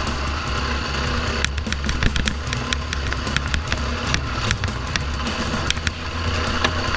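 KTM 350 EXC-F dual-sport motorcycle's single-cylinder four-stroke engine running at a steady low pitch while the bike is ridden over rocky trail. Frequent sharp clicks and knocks run through it, from stones and the bike's parts rattling.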